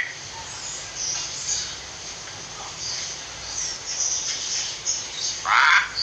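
Bird calls: scattered faint high chirps, then a louder harsh call about five and a half seconds in.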